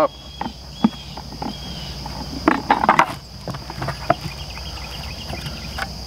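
Plastic parts of a poultry bell waterer clicking and knocking as they are handled and fitted together: scattered light clacks, with a busier cluster about two and a half to three seconds in. Under them runs a steady, high insect chorus.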